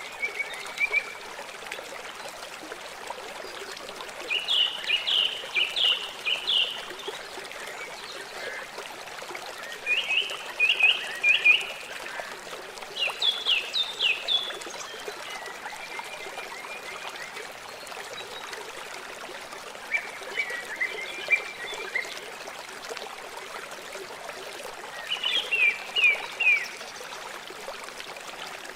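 Steady rush of a flowing river, with a bird calling over it about six times in short runs of quick, falling chirps.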